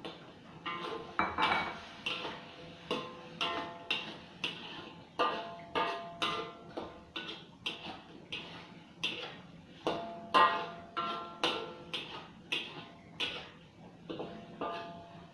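A metal spatula scraping and knocking against a stainless steel wok during stir-frying, roughly two strokes a second, each stroke making the wok ring briefly.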